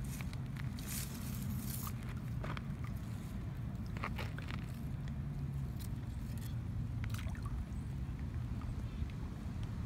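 A steady low hum and rumble, with scattered short rustles and clicks of grass stems brushing against the phone.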